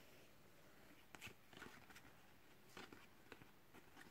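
Near silence, with a few faint, scattered ticks and rustles of trading cards being handled and set down.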